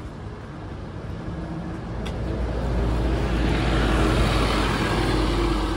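A bus passing close by: its engine rumble and tyre noise build to a peak about four seconds in, then begin to fade as it pulls away.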